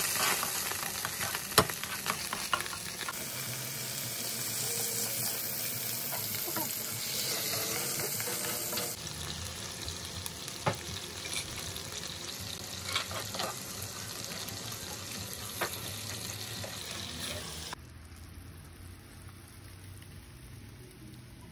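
Minced garlic sizzling in butter and oil in a nonstick frying pan, stirred with a spatula that clicks against the pan now and then. The sizzle drops away sharply near the end.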